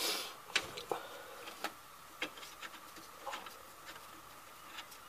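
Irregular light metallic clicks and taps of gloved hands working a nut and bolt on a car's rear suspension, about half a dozen over a few seconds.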